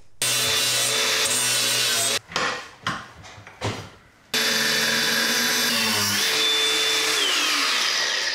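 Angle grinder cutting through welded-on mild steel in two runs, the first about two seconds and the second about four. Near the end of the second run the motor's pitch falls.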